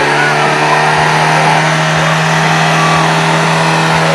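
Off-road buggy engine held at high, steady revs, a loud constant drone after a few rises and falls in pitch just before.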